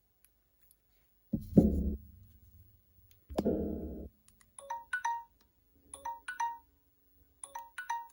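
Smartphone alarm going off: two low buzzes, then a short phrase of a few bright electronic chime notes that repeats about every second and a half.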